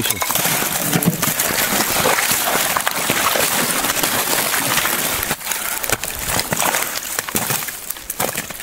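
Rubber boots sloshing and crunching through wet slush, broken ice and shallow meltwater, step after step, with a steady loud wash of noise under the steps.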